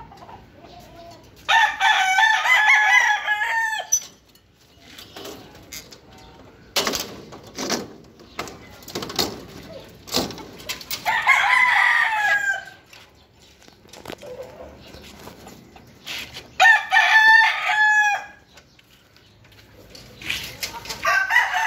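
Roosters crowing four times, each crow a loud drawn-out call lasting about two seconds. A few sharp knocks come between the second and third crows.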